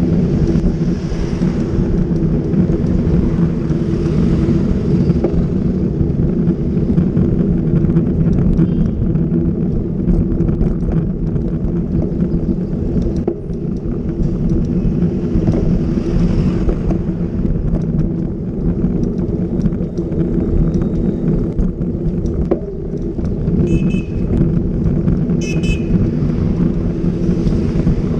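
Steady low rumble of wind and road noise on a bicycle-borne camera's microphone while riding through city traffic. Near the end a horn toots briefly, twice.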